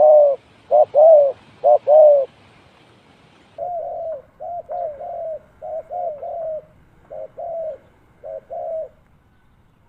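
Spotted dove cooing: loud, doubled coos in the first two seconds, then, after a short pause, a quieter run of shorter coos.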